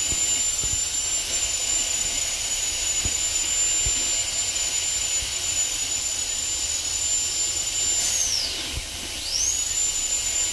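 High-speed air-turbine dental drill whining at a steady high pitch while cutting out a deep cavity in a tooth, over a steady hiss. About eight seconds in it spins down and stops, then spins back up a second later.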